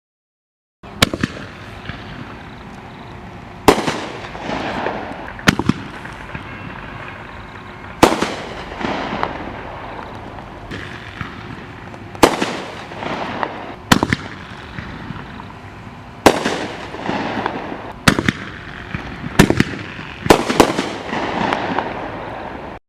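Consumer artillery-shell fireworks going off: about a dozen sharp bangs, some in quick pairs, each followed by a crackling, fading tail.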